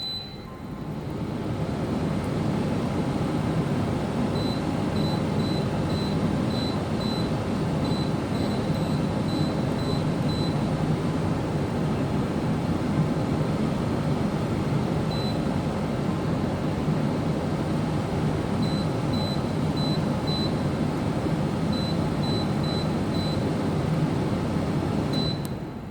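Dehumidifier running with a steady whir while its control panel beeps at each button press: a single beep at the start, runs of short high beeps about two a second from about four to ten seconds in and again from about nineteen to twenty-three seconds, and odd single beeps between. The running noise drops away near the end.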